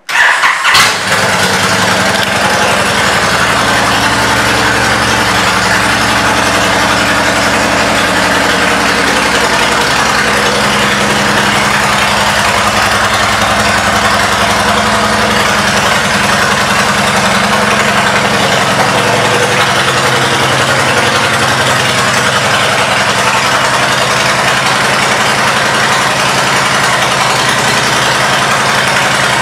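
2010 Honda Stateline's V-twin engine, breathing through aftermarket Cobra exhaust pipes, fires up at the very start and then settles into a steady idle.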